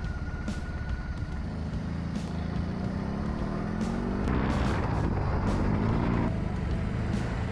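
BMW R 18 B's 1,802 cc air-cooled boxer twin running under way, its pitch rising as the bike accelerates, with a rush of wind noise in the middle.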